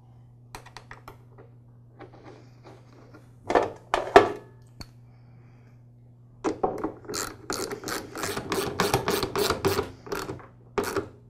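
A hand socket ratchet drives in a screw to secure a plastic mower height adjuster plate, its pawl clicking about four times a second from about six and a half seconds in until near the end. Before that there are a few light handling ticks and two louder clatters around three and a half and four seconds in.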